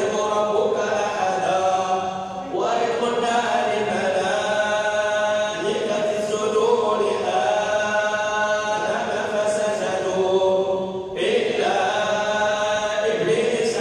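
Quran recitation chanted in long, drawn-out melodic phrases in a large mosque prayer hall, with a fresh phrase beginning about two seconds in and again near the end.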